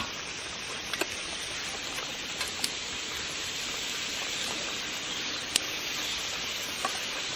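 Country chicken pieces sizzling steadily in hot oil in a karahi, with a few light clicks of a metal spatula against the pan as they are stirred.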